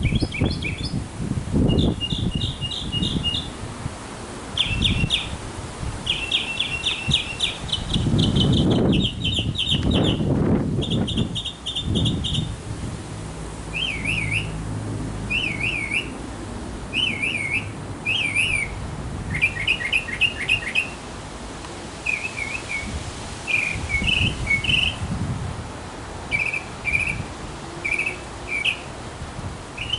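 Northern mockingbird singing a long varied song: rapid trills and chips, then slurred wavering whistles, each phrase repeated several times before switching to a new one. Low rumbling noise comes and goes underneath.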